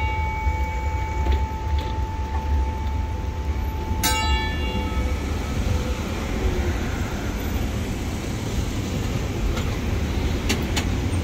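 Brussels 7700-series PCC tram moving past close by, with a steady low rumble of its running. A high ringing tone sounds over the first few seconds and is renewed by a bell-like strike about four seconds in.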